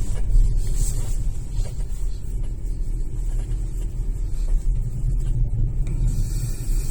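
Steady low road rumble inside the cabin of a moving Chery Tiggo 7 Pro Max, with a few faint creaks in the first couple of seconds. The owner hears such creaks from the rear door and cannot find their cause.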